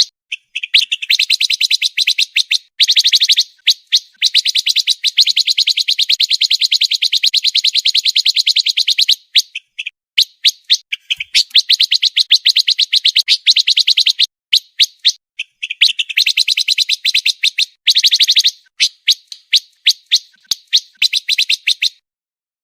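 A pancawarna songbird singing a very fast song of evenly spaced high chirps in long runs broken by short pauses; it stops near the end.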